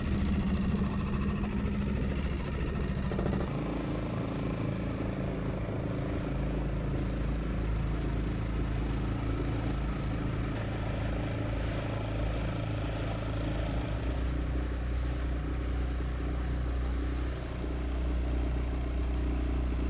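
Small petrol outboard motor running steadily under way, its tone shifting about three and a half seconds in.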